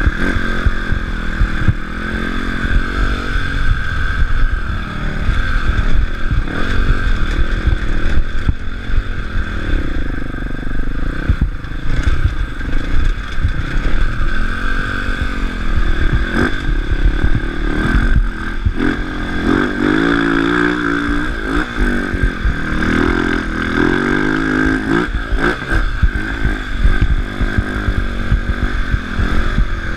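Enduro dirt bike engine heard from the rider's seat, revving up and dropping back again and again through gear changes and throttle on the dirt track. Knocks and rattles from the bike over rough ground run throughout.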